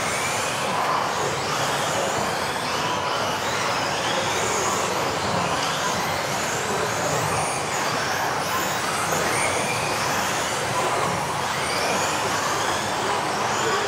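Several electric radio-controlled off-road race cars lapping together, their motors whining and overlapping, each rising and falling in pitch as the cars accelerate and brake.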